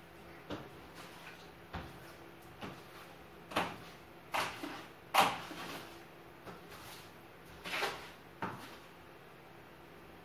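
Irregular knocks and short scrapes from a long-handled broom striking and dragging on the floor between the beds while sweeping, about ten in all, the loudest near the middle.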